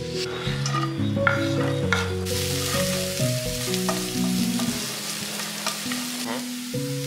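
Chopped onion and spring onion frying in a nonstick pan, stirred with a spatula; the sizzle comes in about two seconds in. Background music plays underneath.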